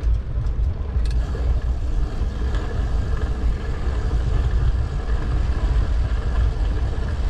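City street traffic heard while riding a bicycle: cars going by over a steady low rumble.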